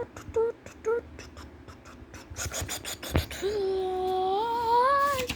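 Cartoon soundtrack: a few short pitched blips about half a second apart, then a brief run of sharp clicks, then one long held note that rises in pitch near the end.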